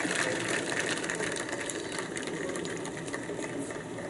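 Crowd in the stands clapping, a dense patter of many hands that eases slowly.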